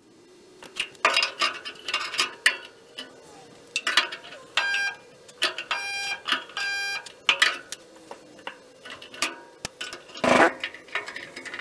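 Handheld resistance spot welder firing on steel body seams: three short buzzes about a second apart near the middle. Around them are clanks and clicks of the welder's arms being set against the metal.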